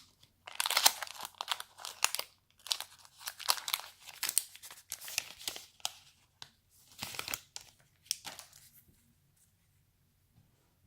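Wrapper of a baseball card pack being torn open and crinkled by hand, a run of crackling and tearing for about eight seconds.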